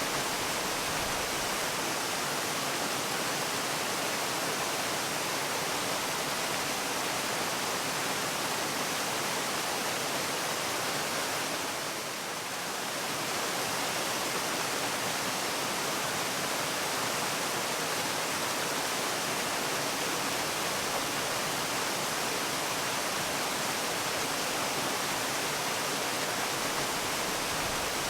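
Waterfall: a steady, even rush of falling water, briefly a little softer about twelve seconds in.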